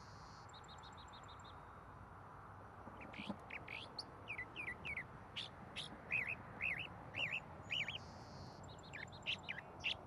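Birds calling: a brief high trill at the start, then from about three seconds in a run of short, repeated chirps, some rising and falling, over a faint steady hiss.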